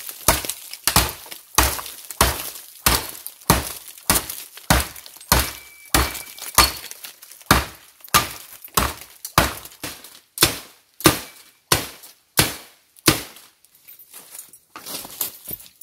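A metal shovel blade chopping into bamboo stalks: a steady run of sharp, crisp blows, about one and a half a second, some with a brief metallic ring. The chopping stops about 13 seconds in, followed by fainter rustling.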